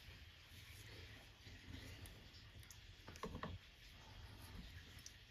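Near-silent room tone with a few faint clicks about three seconds in, from fly-tying tools being handled at the vise.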